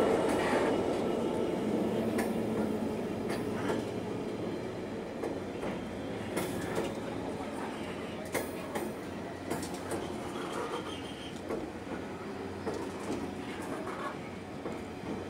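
Class 66 diesel locomotive's two-stroke V12 engine passing close and fading over the first few seconds, followed by HIA hopper wagons rolling past at speed. The wagon wheels give irregular sharp clicks over the rail joints.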